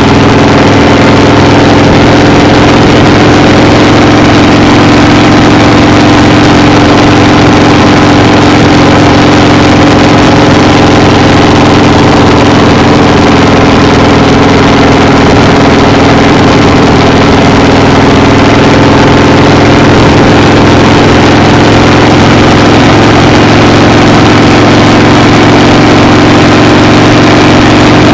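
Loud, steady engine drone with a constant hum that does not change in pitch or level.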